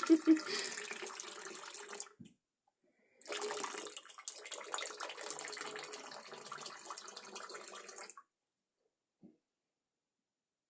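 Water running from a bathroom sink faucet into the basin: on for about two seconds, off briefly, then on again for about five seconds before stopping.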